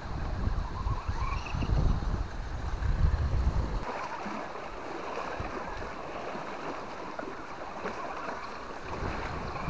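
Wind buffeting the microphone for about the first four seconds, then the steady whir of an RC rock crawler's electric motor and geared drivetrain as it climbs over rock.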